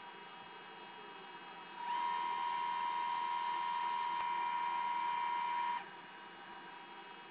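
A steady high-pitched tone comes in about two seconds in, holds for about four seconds, and cuts off suddenly.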